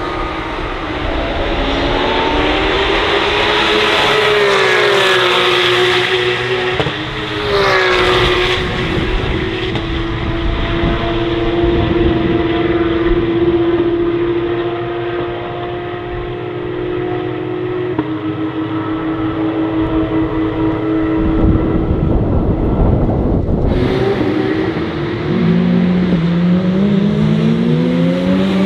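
Porsche 911 GT3 Cup (992) race car's naturally aspirated flat-six engine at racing speed. The engine note drops and climbs through gear changes, holds one high note for about ten seconds, then rises again through the gears near the end.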